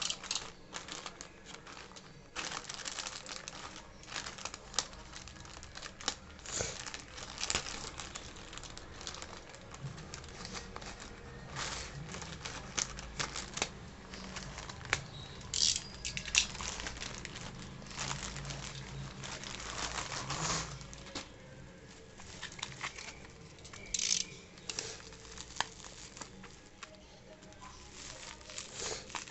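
Packaging being handled and unwrapped: irregular crinkling and rustling with sharp clicks and brief tearing sounds.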